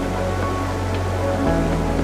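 Background music: held tones over a sustained low bass note, the bass shifting to a new note about one and a half seconds in.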